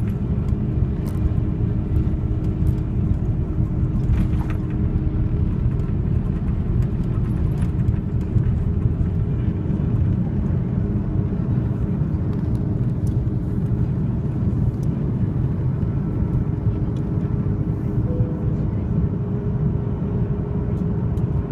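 Aircraft engine and cabin noise heard from inside a passenger plane: a steady low rumble with a faint steady hum over it.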